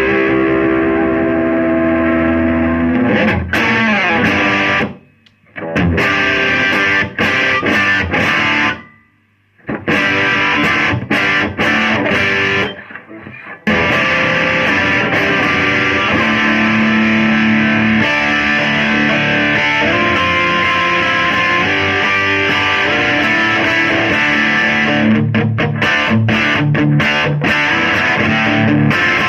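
Electric guitar played through an amplifier with a distorted, effects-laden tone: held chords and riffs, broken by two brief full stops and later by choppy stop-start strokes near the end.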